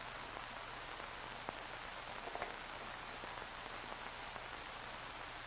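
Steady hiss of an old recording, with a faint low hum and a couple of small clicks.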